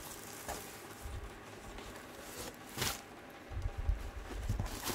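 Plastic wrap on a padded jacket rustling as the jacket is handled and lifted from a cardboard box. There is one sharp crackle about three seconds in, followed by a few dull bumps.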